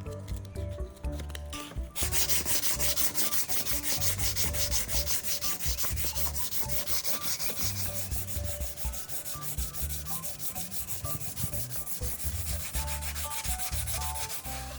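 Sandpaper rubbing over a plastic car bumper's surface in quick, even back-and-forth strokes. It starts about two seconds in and keeps going steadily.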